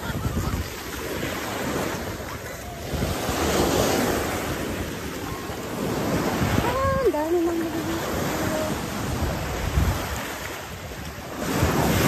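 Surf washing up onto a sandy beach, its rushing noise swelling and fading as each wave breaks and runs up the shore, with wind buffeting the microphone in low rumbles.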